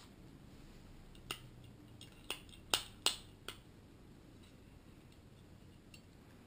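Plastic GoPro clamp mount clicking as it is worked in the hands: five sharp clicks over about two seconds, the loudest two near the middle.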